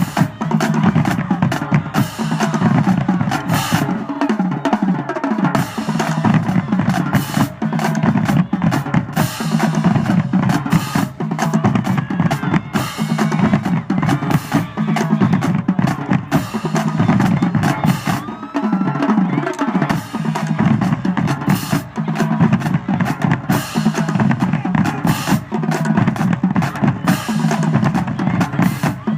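High school marching drumline playing: rapid snare rolls and rimshots over bass drums. Twice the low drums play a run that falls in pitch, about four seconds in and again near the middle.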